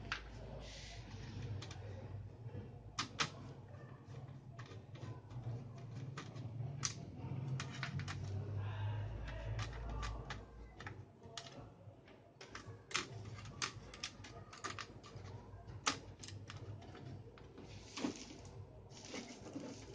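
Irregular clicks and taps of a screwdriver and screws against a monitor's metal chassis and power board as screws are taken out, over a low steady hum.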